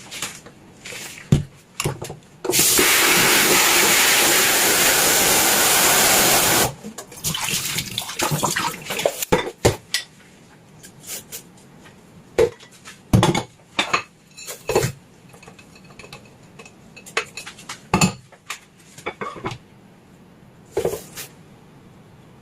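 Kitchen tap running full into a sink for about four seconds, then stops; after it come scattered knocks and clinks of dishes being handled and washed by hand.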